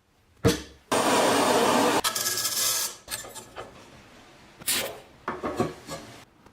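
Workshop tool sounds in quick cuts: a sharp knock, then stretches of rasping and scraping that start and stop abruptly, and a few short scrapes near the end.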